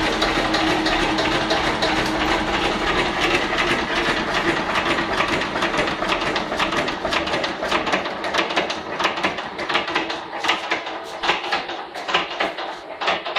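Listeroid single-cylinder slow-speed diesel engine running, then winding down from about halfway through: its deep beat fades and the sharp mechanical clicks of its valve gear stand out on their own.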